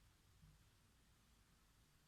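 Near silence: faint room tone with a low rumble, with no distinct keystrokes.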